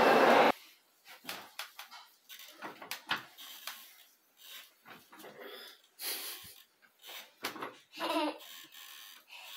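A loud steady rushing noise cuts off suddenly half a second in; after it, a young child breathes and giggles breathily and quietly, among small scattered knocks and clicks, with one short higher voiced sound near the end.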